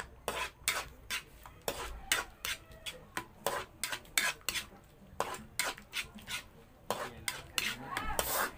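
Metal spoon stirring a thick cream sauce in a metal wok, scraping and clinking against the pan in quick strokes, about three a second.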